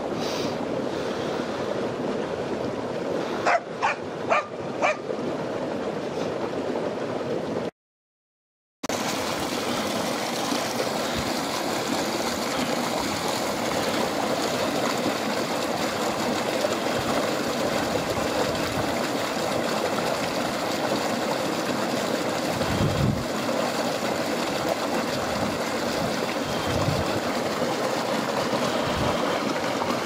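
Creek water running steadily, with a dog barking four times in quick succession a few seconds in.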